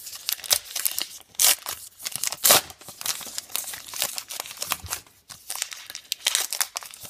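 A 2018 Topps Gypsy Queen baseball card pack's wrapper being torn open and crinkled in the hands, a string of irregular crackles and rips, loudest twice near the middle.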